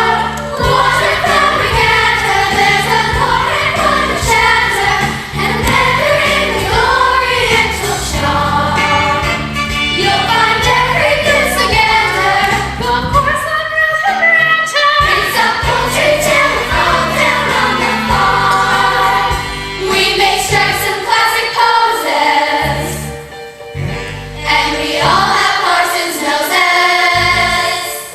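Youth theatre cast singing a stage-musical number together like a choir, over instrumental accompaniment, briefly softer about four-fifths of the way through.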